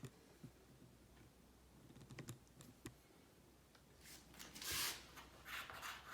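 Faint scattered clicks and a brief rubbing sound: a small magnetic stud marker being handled and slid against a wall while searching for a nail.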